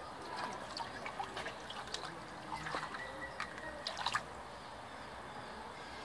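A kea dabbling in a shallow muddy puddle, making small splashes and drips with its beak. The splashing ends with a louder burst about four seconds in.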